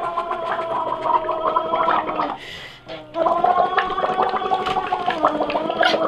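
A child blowing through a straw into a cup of soapy bath water while voicing, making a pitched, bubbling gargle. There are two long blows, with a short break for breath about two and a half seconds in.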